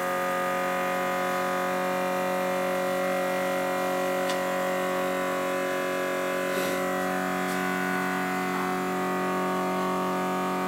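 Electric fuel pump running with a steady, even hum, pushing fuel to the big-block Chevy's carburetor and building pressure to about 6 psi.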